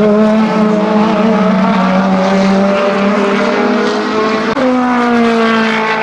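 Lamborghini SC63's twin-turbo 3.8-litre V8 race engine running hard, its note falling steadily. About four and a half seconds in, the pitch jumps up suddenly and then falls away again.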